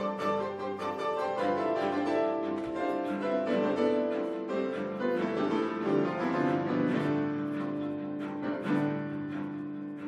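Instrumental background music: piano notes over held, lower bowed-string tones.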